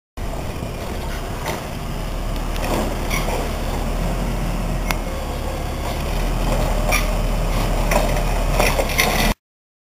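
Peterbilt garbage truck's diesel engine running steadily as the truck moves along the curb, with a few clanks and knocks, one sharp one about halfway through.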